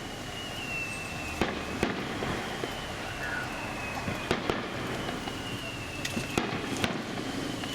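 Aerial fireworks shells bursting: three pairs of sharp bangs a few seconds apart, with a steady crackling haze between them.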